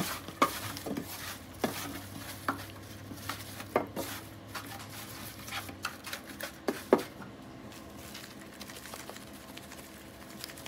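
Raw chicken drumsticks being turned by a gloved hand in a stainless steel pan, knocking irregularly against the metal; the knocks stop about seven seconds in. After that a seasoning shaker sprinkles rub, with faint light ticks.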